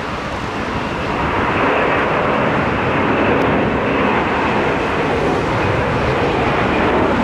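Jet engines of a four-engined Boeing 747-400 climbing out after takeoff: a steady rushing noise that grows louder about a second in and then holds.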